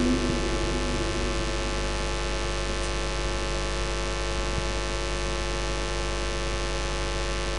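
Steady electrical mains hum and hiss from the mosque's sound system, with many steady tones, heard in a pause between recitations. The last echo of a voice dies away in the first second.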